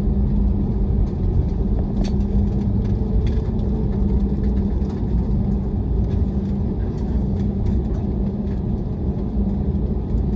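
Cabin noise of a Pegasus Airbus A321-200 on the ground just after landing: a steady low rumble from the wheels with a constant engine hum, and a few faint rattles.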